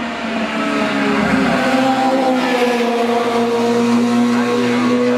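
Open-wheel formula racing car's engine running hard at high revs as the car climbs past, getting louder about a second in and then holding a steady high pitch.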